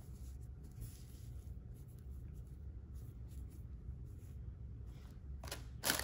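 Faint rustling and scratching of a small fabric drawstring gift bag handled in the hands, with a louder rustle near the end, over a low steady room hum.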